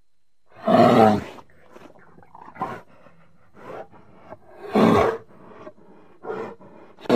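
Bear roaring and growling: three loud roars, about a second in, about five seconds in and at the very end, with shorter, quieter growls between them.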